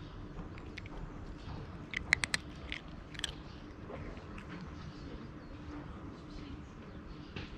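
A cat crunching dry kibble. The crunches are sharp and scattered, with the loudest a quick cluster of three about two seconds in and another about a second later, and fainter chewing between them.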